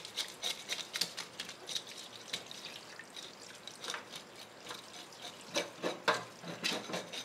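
Fish scaler scraping scales off a rockfish (arakabu) in quick, irregular scratchy strokes, several a second, loudest about two-thirds of the way through. Tap water runs steadily into a stainless-steel sink underneath.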